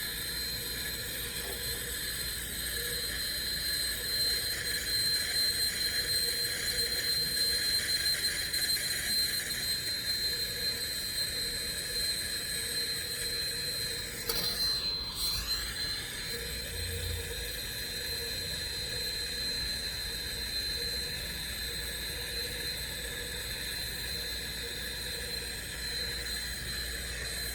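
Turbo torch, an air-acetylene torch, burning with a steady hiss and a constant high whistle as its flame heats a copper joint for soldering. About halfway through, the hiss briefly sweeps down in pitch and back up.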